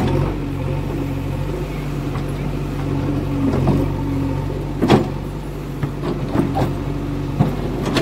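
JCB 3DX backhoe loader's diesel engine running steadily under work, with a sharp knock about five seconds in and a few lighter knocks near the end.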